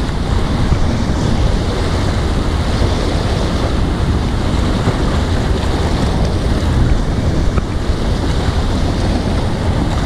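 Sea waves washing and splashing against a rocky shoreline, with steady wind buffeting the microphone.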